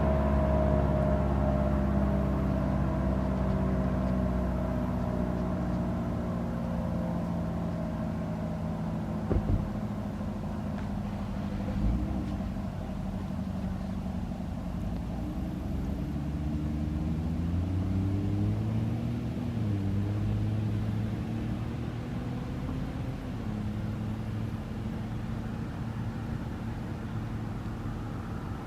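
ACA Allertor 125 rotating siren winding down, its chord of tones sliding slowly lower and fading; the siren runs slow from a short in its motor windings. Underneath is a low engine-like rumble that rises and falls in pitch midway, with two short knocks a couple of seconds apart.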